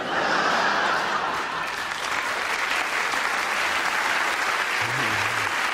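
Audience applauding steadily in response to a joke.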